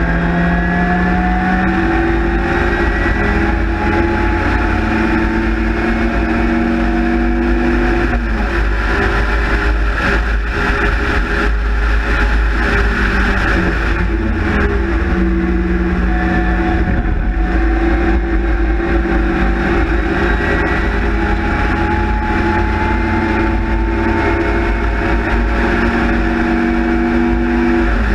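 Race car engine running hard at high revs from inside an open cockpit, held steady for stretches, with brief lifts or gear changes that shift its pitch a few times. Wind buffeting sits underneath throughout.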